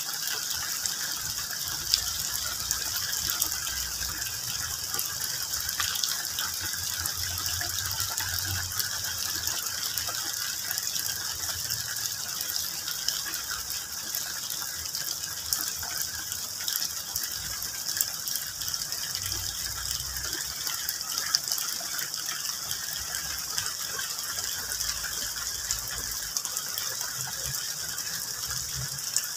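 Steady rain pattering on tree and banana leaves: a dense, even hiss of drops with many fine ticks and a few sharper, louder drips here and there.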